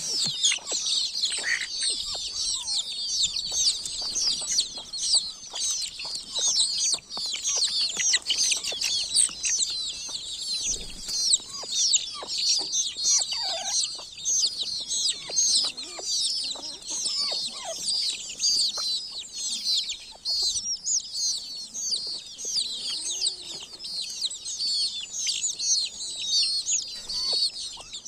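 A brood of baby chicks peeping: many overlapping, high-pitched chirps in a steady, continuous chorus.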